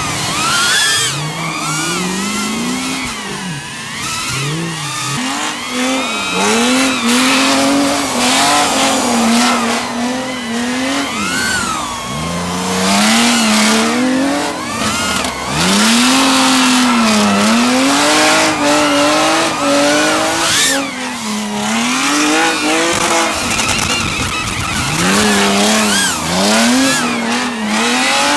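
Drift car engine revving hard, its pitch swinging up and down over and over in quick arcs, over a constant hiss of tyres squealing in a slide.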